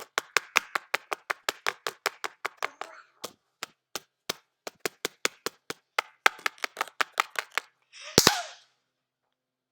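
Home-made sound effects: a fast run of sharp taps or claps, about five a second, that slows briefly in the middle and stops. A louder double crack with a short hissing burst follows, then silence.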